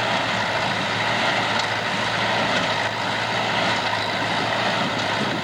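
Farm tractor engine running steadily under load while pulling a hay baler, a constant hum with a broad mechanical clatter over it.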